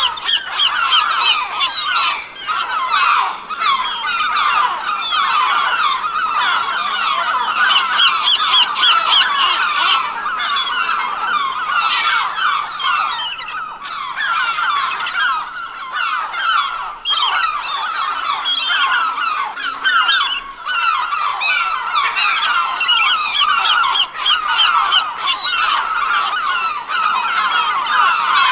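A flock of gulls calling all at once: a dense, continuous din of many overlapping short calls with no pauses.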